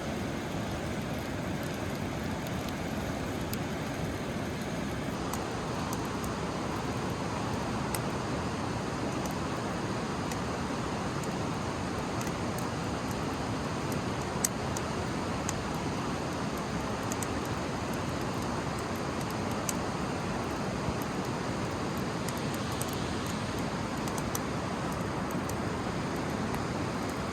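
Stream water rushing steadily over rocks, an even, unbroken noise, with a few sharp clicks scattered through it, the loudest about halfway through.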